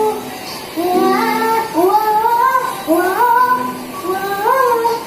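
A child singing a song in short phrases, with notes that slide upward.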